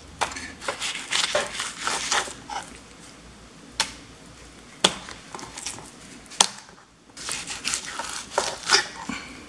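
Knife scraping and slicing along raw surf perch fillets on a wooden cutting board as the skin is cut away, in scratchy clusters of strokes, with three sharp single knocks on the board in between.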